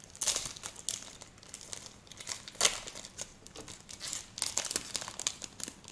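Trading card packets being handled and torn open: the wrappers crinkle and tear in irregular bursts, loudest about two and a half seconds in.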